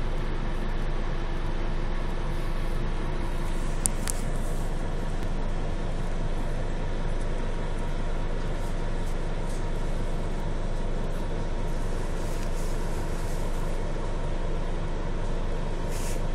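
Scania CN280UB city bus heard from inside the passenger cabin: a steady engine and running drone. A sharp click comes about four seconds in, and a short hiss near the end.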